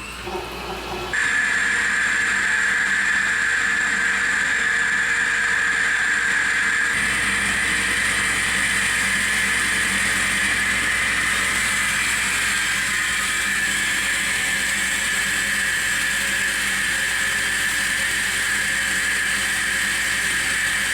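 Tormach Slant-Pro CNC lathe turning 1045 cold-rolled steel, a steady machining noise with a constant high whine. It is quieter for the first second, then jumps louder.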